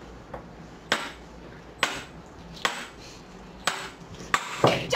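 Large Chinese chess (xiangqi) pieces knocking down on a wooden board: a string of sharp clacks roughly once a second, with several close together near the end.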